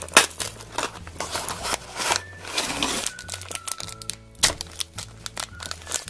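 A cardboard blind box being opened and the crinkly foil bag inside rustled and torn open: many quick, irregular crackles of packaging, over background music.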